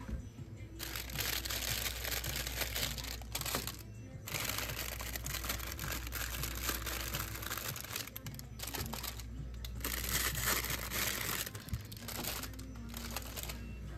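Plastic ice-cream bar wrappers crinkling as they are rummaged through in a freezer case, in several bursts of a few seconds with short pauses, over background music.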